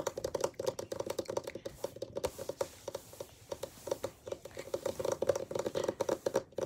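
Fingers tapping close to the microphone as an ASMR trigger: quick, uneven taps, several a second, without a break.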